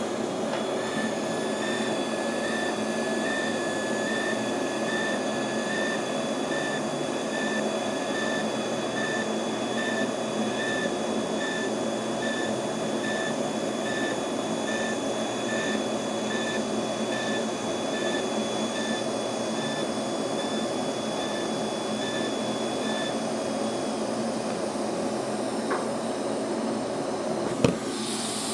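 Pulsed TIG welding arc on a mild-steel roll cage: a steady buzzing hiss with a thin high tone beating a little faster than once a second, in time with the welder's on-off pulse setting. The pulsing tone stops near the end, followed by a single knock.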